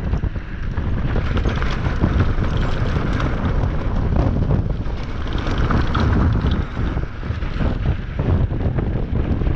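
Heavy wind buffeting the microphone, a loud, steady rumbling rush of air with no break.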